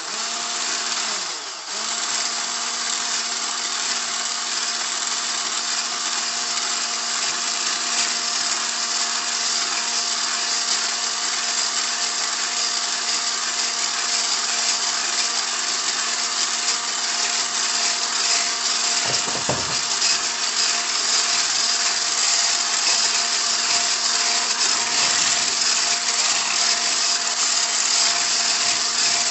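Electric hand mixer running steadily, its beaters creaming ghee, oil and powdered sugar in a bowl. The motor gives a constant hum under a hiss, dipping briefly about a second and a half in.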